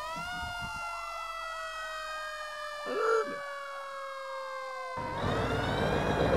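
A siren wailing: its pitch falls slowly for about five seconds, with a brief blip about three seconds in, then rises again over a rushing noise near the end.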